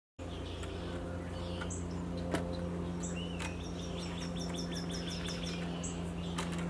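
A quick run of about a dozen high chirps, with a few scattered single chirps around it, over a steady low mechanical hum; a few sharp clicks, the loudest about two seconds in.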